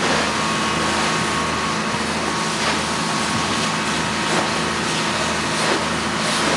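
Firefighter's hose spraying water onto a burning car: a loud, steady hiss of spray and steam over a steady low engine drone.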